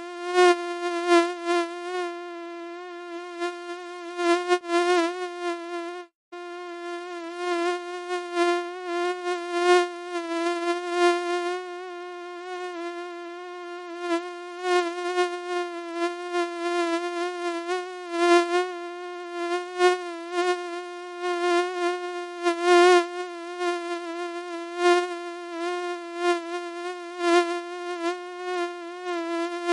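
Mosquito buzzing: a steady, whiny wingbeat drone at one pitch that wavers slightly, with a brief break about six seconds in.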